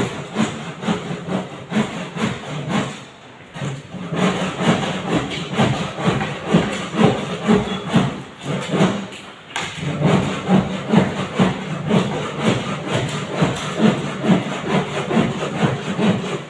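Hand saw cutting a round hole in a ceiling board, worked overhead in quick, steady back-and-forth strokes of about three a second, with short pauses about three and a half and nine and a half seconds in.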